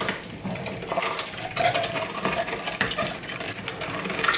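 LEM No. 10 hand-cranked meat grinder being turned as it grinds cooked chicken meat and bone through a 3/16-inch plate. It makes a steady, irregular run of metallic clicks, scrapes and crunches, with a few brief squeaks.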